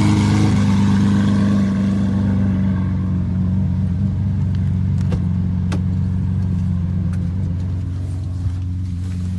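Lamborghini Urus twin-turbo V8 idling steadily, gradually getting quieter, with a few sharp clicks about five seconds in.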